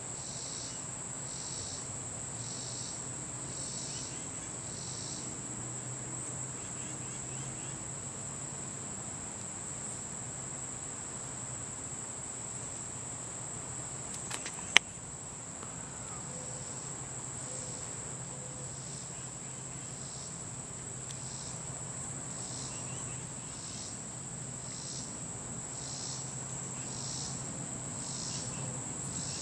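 Late-summer insect chorus: a steady high-pitched drone with a slower rhythmic chirping beneath it that fades out midway and returns later. A single sharp click about halfway through.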